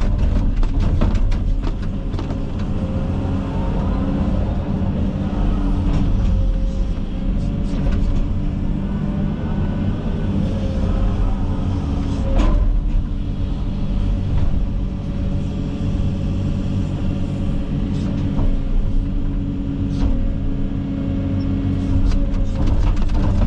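Komatsu 360 excavator's diesel engine running steadily under load, with a steady hydraulic whine and a few sharp knocks or cracks as it works through brush. The clearest crack comes about twelve seconds in.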